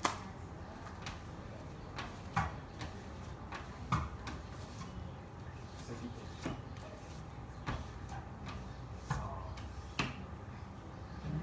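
Scattered light knocks and clicks, a second or more apart and irregular, as a vinyl decal is pressed and smoothed onto a car door panel, over a faint steady hum.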